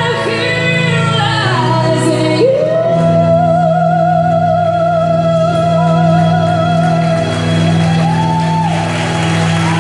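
A woman singing into a microphone over sustained instrumental chords: a short moving phrase, then one long high note with vibrato held for about five seconds, lifting slightly near the end.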